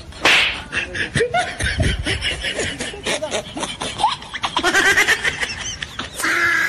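Laughter in short broken bursts, with a sharp burst of hiss about a quarter-second in and a high, wavering pitched cry near the end.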